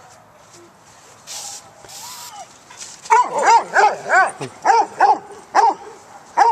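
A small dog barking, a quick run of about eight short, high yappy barks in the second half.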